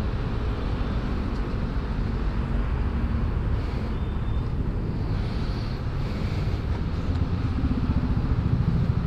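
Yamaha scooter's engine idling steadily while stopped in traffic, with the rumble of surrounding road traffic.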